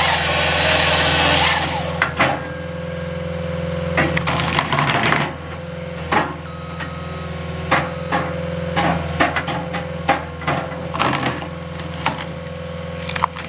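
Halverson HWP-140B skid-steer firewood processor at work: the skid steer's engine runs steadily under a loud crackling burst in the first second and a half, then scattered sharp cracks and knocks of wood being split and pieces falling.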